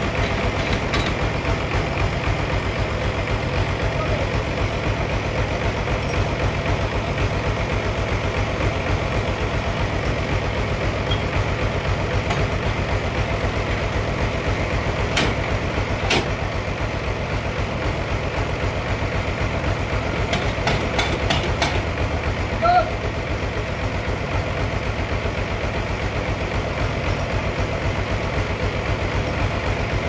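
Band sawmill running steadily, its drive engine droning with a low, even throb. A few sharp clicks sound about halfway through, and a short knock follows a little later.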